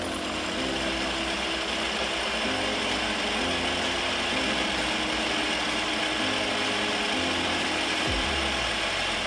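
Pillar drill running, its bit cutting a bolt hole through a metal plate: a steady mechanical whirr and rattle with metal cutting. Background music with a stepping bass line plays underneath.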